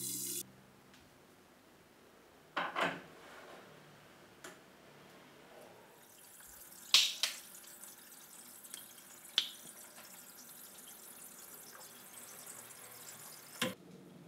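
Tap water running into an electric kettle at a stainless steel sink, cut off about half a second in. Then a quiet room with a few sharp knocks and clicks of a kettle and a plastic bucket being handled at the sink, the loudest about seven seconds in.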